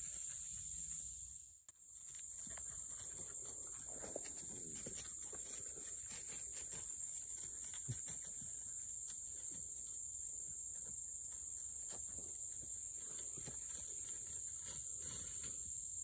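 Steady high-pitched drone of insects in summer woods, with scattered rustles and small snaps in dry leaf litter. The sound drops out briefly about two seconds in.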